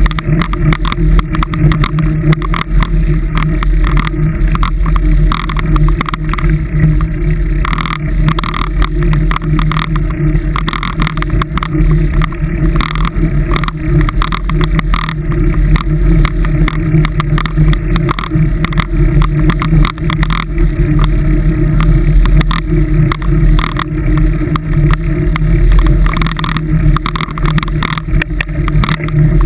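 Vehicle engine drone and tyre road noise while driving at a steady speed on a rough, packed-snow road, with many small knocks and rattles from the bumps. The engine note holds steady, without revving up or down.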